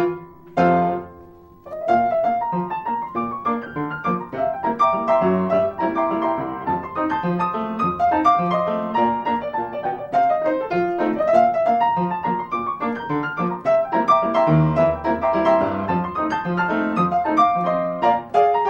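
Solo piano playing a busy accompaniment of quick notes. About a second in it thins to one held chord that fades, then the playing resumes.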